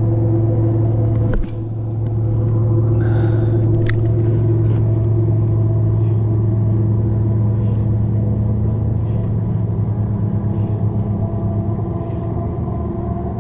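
Steady low engine drone, as of a motorboat running on the water, with a single sharp click about a second and a half in. Toward the end the drone's pitch shifts and wavers.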